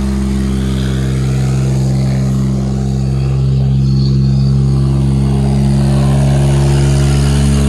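Car engine revving hard and held at steady high revs while the front tyre spins in place in a smoky burnout. The engine note holds one pitch and gets slightly louder about halfway through.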